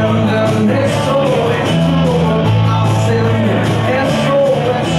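Live rock music from a small band: electric bass holding long low notes under electric guitar, with a male voice singing lead over it.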